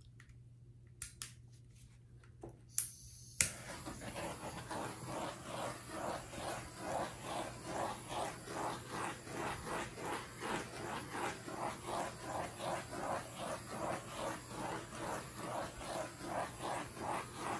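Handheld butane torch being used on a wet acrylic pour. A few sharp clicks are followed, about three seconds in, by a steady hiss that pulses regularly about twice a second.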